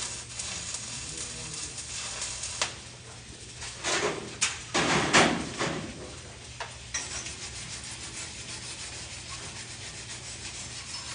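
Metal shop work noise: scraping and crackling strokes, loudest in a cluster about four to six seconds in, then a finer steady crackle, over a low steady hum.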